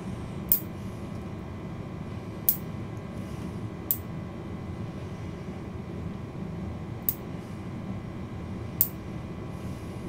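Fingernail clippers snipping five times, each cut a sharp click, over a steady low mechanical hum.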